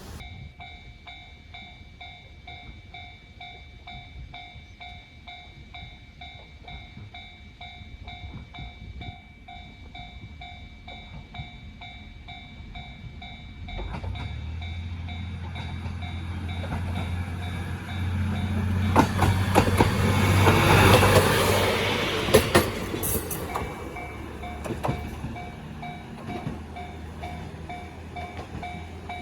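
Japanese level-crossing warning bell ringing in a steady, evenly repeating ding. About fourteen seconds in, a diesel railcar's engine drone comes in and grows. The train passes loudest around twenty seconds with a run of sharp wheel clicks over the rail joints, then fades while the bell keeps ringing.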